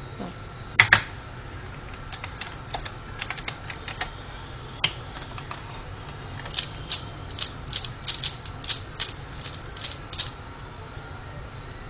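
Plastic Pyraminx puzzle being turned by hand: scattered clicks at first, then a fast run of clicking turns in the second half that stops about ten seconds in. A sharp double knock comes about a second in.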